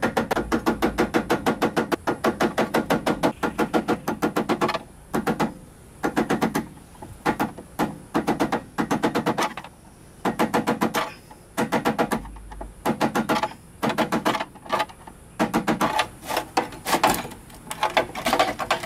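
A mallet tapping a flathead screwdriver against a 2003 Mazda B2300's fuel pump lock ring to drive it counterclockwise. It starts as a fast run of ringing taps, about eight a second, then breaks into short bursts of taps with pauses between.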